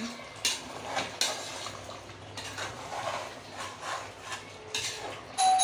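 A spatula stirs and scrapes chicken masala in an aluminium pressure cooker, with irregular knocks against the pot. Near the end a louder knock leaves a brief metallic ring.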